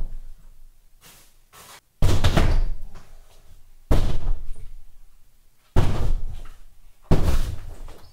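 Drywall being smashed in from behind: four hard crunching blows roughly every two seconds, each fading out over about a second as the board breaks.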